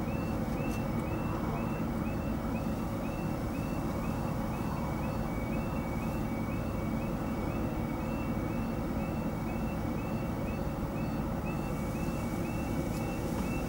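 Level crossing warning alarm sounding, a repeated electronic tone that rises then holds, about three times a second, signalling that a train is approaching. Under it is the steady low hum of an idling car engine.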